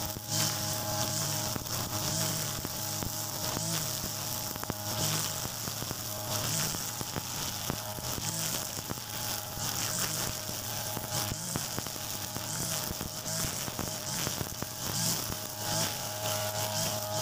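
Mitsubishi petrol brush cutter running at full throttle with nylon trimmer line, a steady high buzz. The line's hiss through the grass swells and fades every second or two as the head is swept from side to side.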